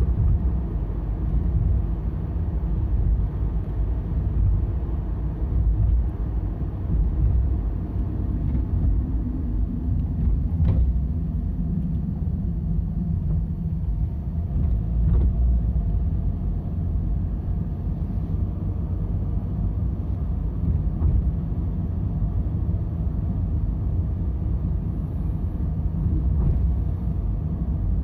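Steady low road and engine rumble heard inside a moving car's cabin, with a couple of faint ticks midway.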